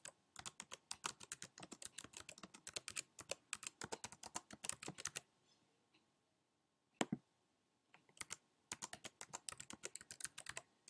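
Typing on a computer keyboard: quick runs of key taps, a pause about halfway with one louder single keystroke, then more typing near the end.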